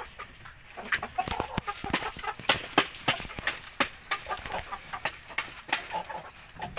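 Chickens clucking in short calls, among a dense run of sharp clicks and taps that are the loudest thing from about a second in.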